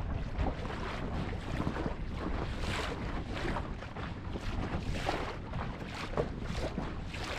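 Water splashing and rushing against the hull of a moving boat, in uneven small surges, with wind buffeting the microphone as a low rumble.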